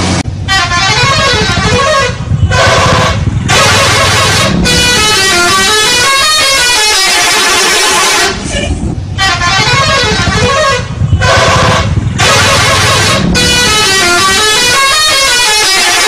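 Indonesian tour bus's 'telolet' musical horn, a set of electric air-horn trumpets playing a fast melody of stepped tones that climbs and falls. It repeats in several phrases with short breaks between them.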